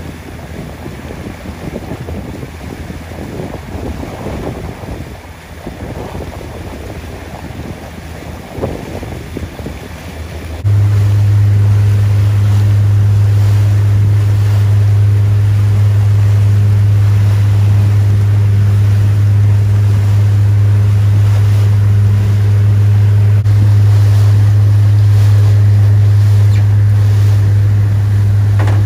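Wind buffeting the microphone over water. About ten seconds in, a loud, steady low mechanical drone cuts in suddenly and holds unchanged.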